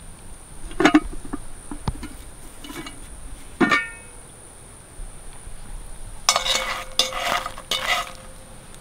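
Cast iron Dutch oven lid clanking and scraping against the pot rim as it is worked loose and lifted off with a lid lifter, each knock ringing briefly, with a quicker run of ringing clatter near the end. Crickets trill steadily behind.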